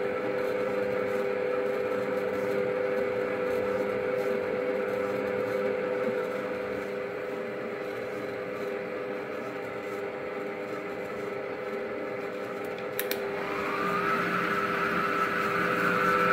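Starcrest stand mixer's electric motor running steadily, kneading yeast dough in its steel bowl. About 13 seconds in there is a click, then a higher whine joins and the mixer grows louder.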